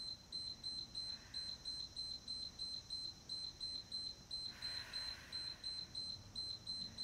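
Electronic beeper sounding a rapid alarm: a high single-pitched beep repeating evenly, about three beeps a second, without a break.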